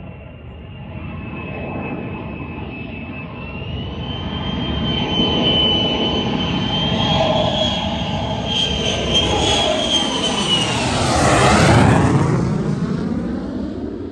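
RAAF F-35A Lightning II's single F135 afterburning turbofan growing louder as the jet approaches, a high whine riding over the rumble. It peaks about twelve seconds in as the jet passes, then starts to fade.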